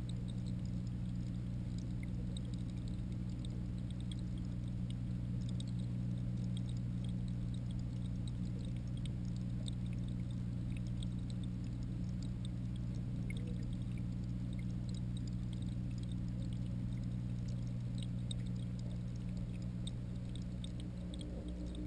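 Steady low hum of a reef aquarium's water pumps heard through a camera submerged in the tank, with scattered faint ticks and crackles.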